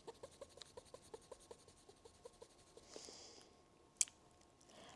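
Faint, quick back-and-forth rubbing of Simichrome polish on a jewelry piece during a Bakelite test, about six short squeaky strokes a second, stopping about a second and a half in. A sharp click follows about four seconds in.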